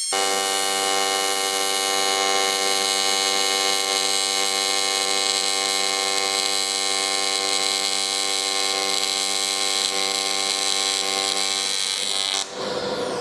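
AC TIG welding arc from an HTP Invertig 221 running on an aluminum bung: a steady high buzz that cuts out about twelve seconds in as the current is pedalled down.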